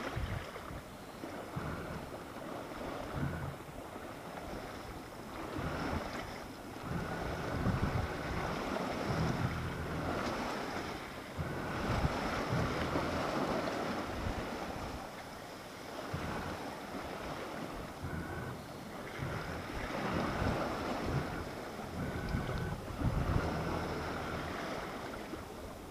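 Wind buffeting the microphone over the rush of water along the hull of a small yacht under sail, swelling and easing every few seconds.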